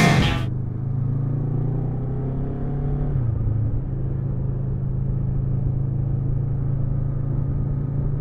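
Kawasaki Versys 650 parallel-twin engine running steadily under way, heard from on the bike, with a step down in engine pitch about three seconds in.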